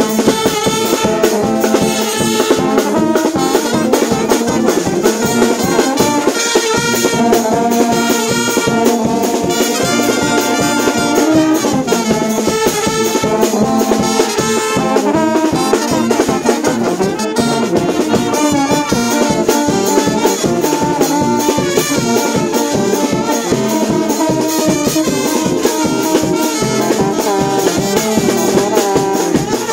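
A brass band playing live: trumpets, trombones and saxophone over drums and cymbals, with a steady beat.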